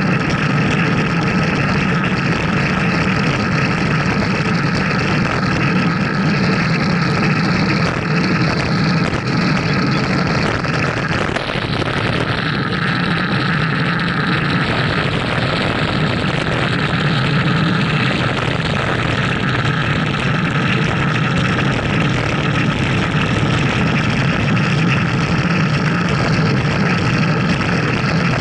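Steady wind rush and road noise on a bicycle-mounted camera while riding at speed, loud and unbroken, with a slight change in its hiss about eleven seconds in.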